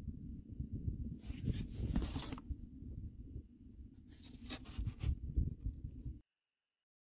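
Hand-held cardboard sign rustling and scraping in two bursts over a low rumble on the microphone; the sound cuts off abruptly near the end.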